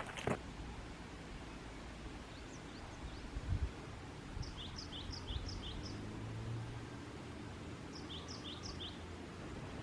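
A small bird calling: a quick run of short, high, falling chirps about halfway through, then three more near the end, over a faint outdoor background with a low hum and one soft knock.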